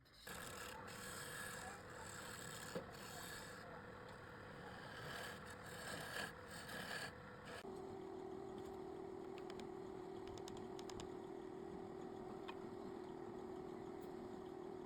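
Scraping and rubbing on a workpiece for several seconds, with a few knocks, then after a sudden change a machine running with a steady hum.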